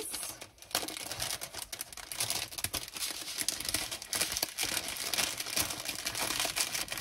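Clear plastic bags of diamond painting drills crinkling and rustling as they are handled, with many small irregular crackles.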